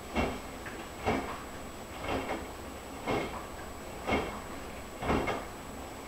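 Front-loading washing machine in its wash tumble: wet cloths and soapy water slosh and drop in the turning drum about once a second.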